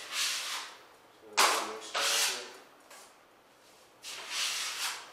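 Steel taping knife scraping joint compound along drywall: about four separate rasping strokes, the two around the middle the loudest.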